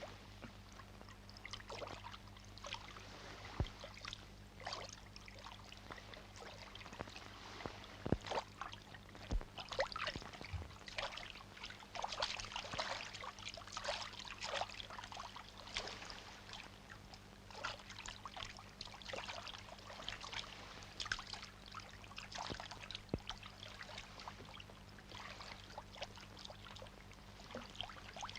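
Water splashing and lapping around a small boat, in irregular splashes every second or so, over a faint steady low hum.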